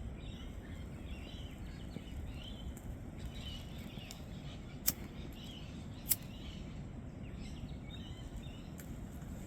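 Steady low wind rumble on the microphone with faint bird chirps, and two sharp clicks about five and six seconds in.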